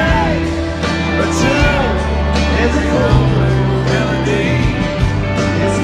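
Live country band playing through a stadium PA, recorded from the stands: steady bass, guitars and a singing voice.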